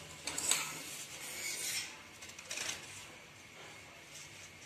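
Large tailor's scissors cutting through four layers of folded newspaper, several short cuts about a second apart with paper rustling between them.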